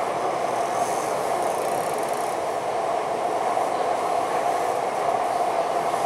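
Cabin running noise of a Taichung Metro Green Line train car under way between stations: a steady rumble and rush with a constant mid-pitched drone.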